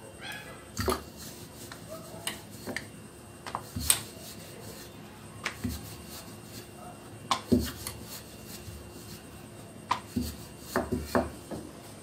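Rolling pin knocking and rubbing on the rolling surface as small puris are rolled out from dough, in irregular taps and clacks, the loudest about four seconds in and again past halfway.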